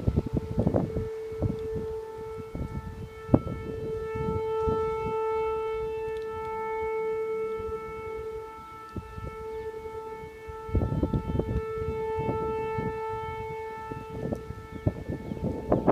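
Unexplained trumpet-like drone in the sky: one steady held horn-like tone that does not change pitch, fading a little past the middle and then returning, over gusts of wind rumble on the microphone.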